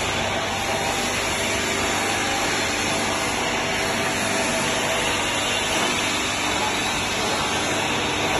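Steady machine noise with a low hum, even throughout.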